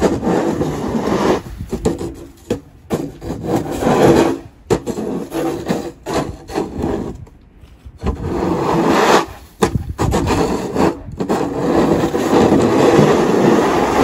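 Manplow pusher snow shovel's wide blade scraping over a snow-covered asphalt driveway, in several long pushes with short breaks, the longest about halfway through.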